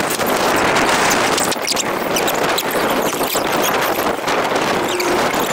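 Wind buffeting a helmet-mounted camera's microphone in a steady rushing noise, with many small clicks and knocks throughout.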